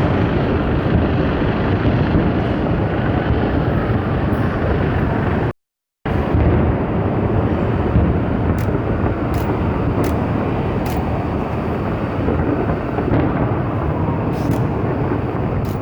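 Continuous low rumble of a fireworks display, the bursts running together with no single bang standing out. About five and a half seconds in, the sound drops out completely for half a second.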